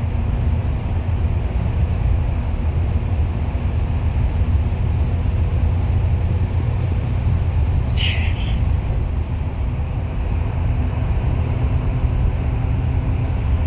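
Steady low rumble of a bus's engine and tyres on the move, with a brief high squeak about eight seconds in.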